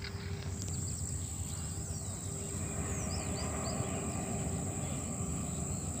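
Outdoor riverside ambience: insects buzzing steadily at a high pitch, short bird chirps here and there, and a low rumble underneath.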